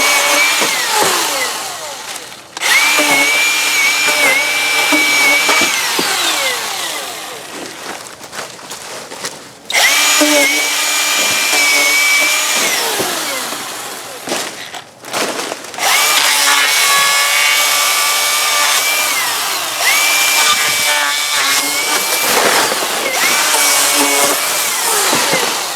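Milwaukee M18 battery chainsaw running in several separate bursts of a few seconds, each a high steady electric-motor whine that spins up and then winds down in a falling tone when the trigger is let go, while it cuts through small trees.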